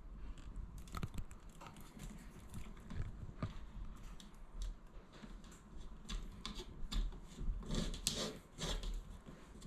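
Wire strippers working on mains cable: a string of small irregular clicks and scrapes as the cable's insulation is cut and pulled off, the loudest cluster near the end.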